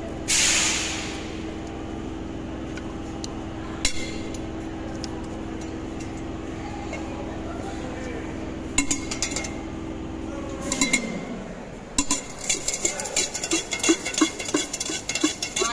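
Spoon clanking against a steel tin as jhalmuri (spiced puffed rice) is mixed: scattered clinks at first, then from about twelve seconds in a fast, regular clanking. Before that, a short loud hiss near the start and a steady low hum that stops about eleven seconds in.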